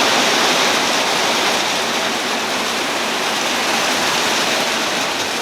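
Heavy rain pouring steadily onto a metal roof, a loud, even hiss of drops with no let-up.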